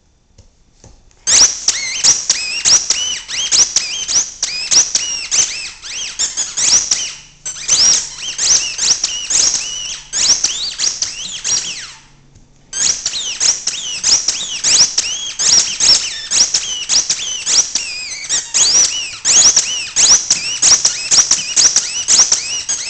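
A dog chewing a squeaky Kong ball, the squeaker sounding in rapid, high-pitched squeals one after another. They start about a second in and break off briefly twice, about seven and twelve seconds in.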